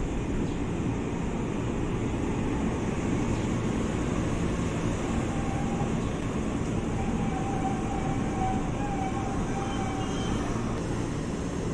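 Electric commuter train (KRL Commuter Line EMU) running by a station platform with a steady low rumble of wheels and running gear. A thin steady whine joins in about halfway through and drops out near the end.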